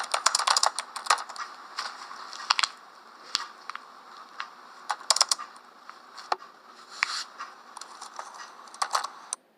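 Typing on a computer keyboard: a quick run of key clicks at first, then slower, scattered keystrokes that stop shortly before the end.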